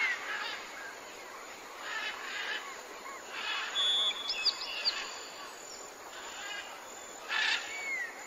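Wild birds calling: scattered bursts of chirping, a briefly held high whistle with quick upward notes about four seconds in, and short falling whistles near the end, over a steady faint outdoor hiss.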